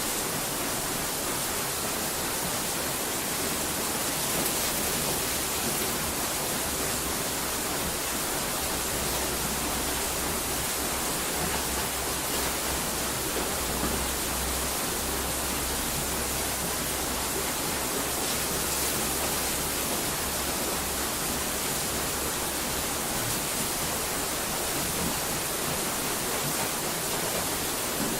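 Steady, unchanging hiss of noise spread evenly from low to high pitch, with no breaks or distinct events.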